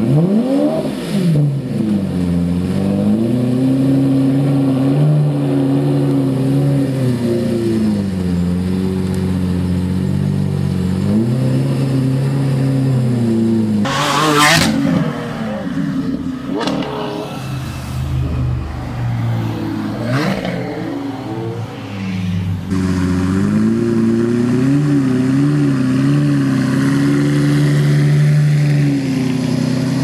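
Lamborghini Murcielago V12 engine revving up and down repeatedly, its pitch rising and falling. About halfway through comes a brief loud burst of noise, and in the later part the engine runs on with smaller blips of revs.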